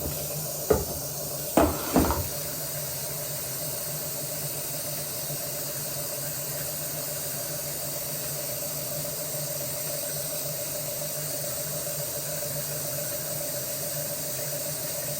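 A blow dryer running steadily, a hiss with a low hum. Three sharp knocks come in the first two seconds.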